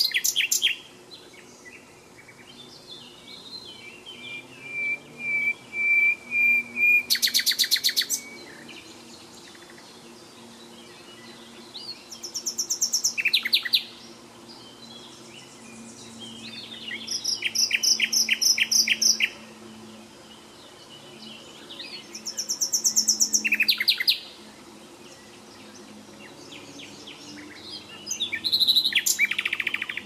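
A songbird singing loud phrases of rapid repeated high notes, one every four to five seconds, with fainter bird chirps between the phrases.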